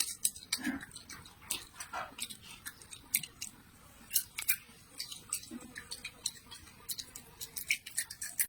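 Close-up chewing and crunching of crisp food: irregular sharp crunches, a few a second.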